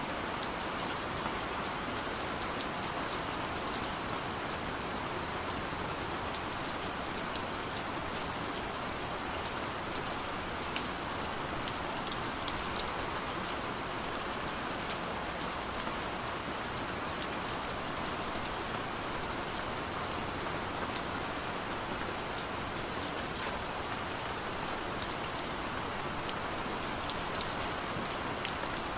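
Steady gentle rain, a constant hiss with many small drops pattering close by.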